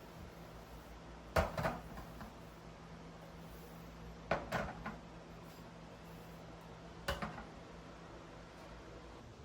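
Three brief clatters of hard objects being handled or set down, each a few quick knocks, about three seconds apart, over a low steady hum.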